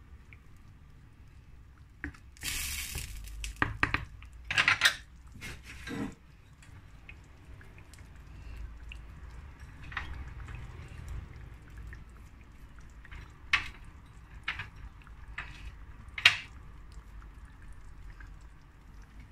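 A wooden spoon scraping and knocking against a clay tajine a few seconds in, then a few scattered sharp clinks of dishes and utensils, over a low steady hum.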